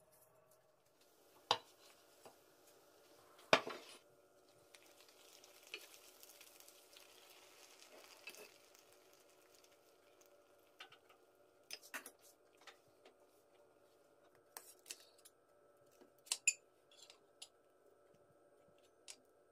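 Metal utensil clinking and scraping against a round metal baklava tray: two sharp clinks in the first few seconds, then a run of light clicks and crackles as a slice of crisp baked baklava is cut and lifted out. A faint steady hum runs underneath.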